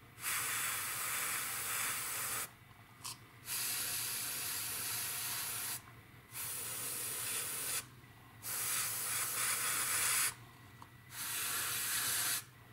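Airbrush spraying paint in five bursts of hiss, each one and a half to two and a half seconds long, with short pauses between them as the trigger is released.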